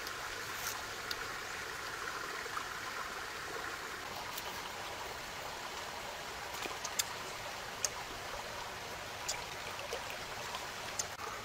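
Steady rushing noise like a running stream, with about eight short sharp clicks and mouth smacks from a person eating jackfruit bulbs by hand.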